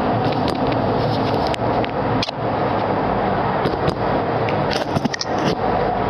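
Steady background noise with scattered short clicks and crackles.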